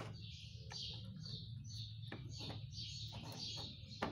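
A small bird chirping over and over, about three short chirps a second, with a few light clicks from test leads and alligator clips being handled.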